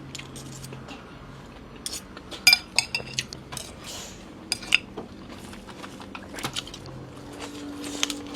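Eating utensils clinking against a bowl of noodle soup: a series of sharp clinks, a few ringing briefly, the loudest about two and a half seconds in.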